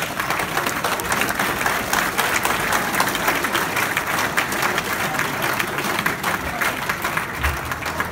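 Crowd of spectators applauding: dense, steady clapping.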